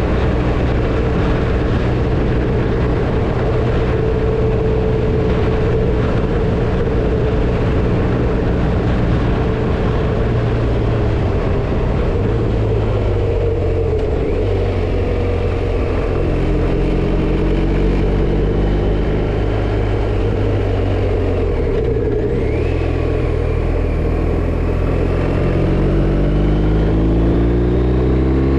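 BMW R1250RT motorcycle's boxer-twin engine running on the road under a steady rush of wind and road noise; near the end the engine note rises as the bike accelerates.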